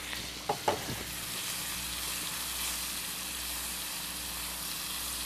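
Onion and butter sizzling in a frying pan while a spoonful of wheat flour is stirred in with a spatula, the start of a roux for a sauce. It is a steady sizzle, with two brief louder sounds about half a second in.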